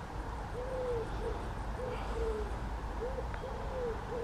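A bird calling in the background: a run of low hooting notes, some drawn out and some short, over a low rumble.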